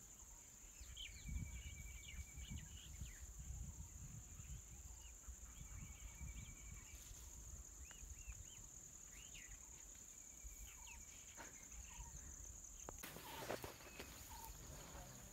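Faint outdoor ambience: a steady, high-pitched insect drone with scattered bird chirps and short trills over a low rustle. About two seconds before the end the drone stops and is replaced by rustling handling noise.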